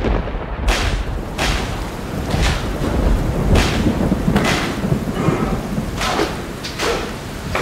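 Deep steady rumble with a heavy thud about once a second.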